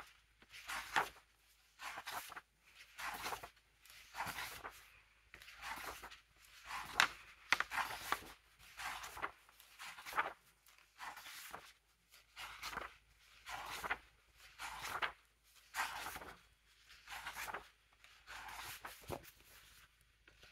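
Paper pages of a thick softcover workbook being turned one after another by hand, a short rustle about once a second.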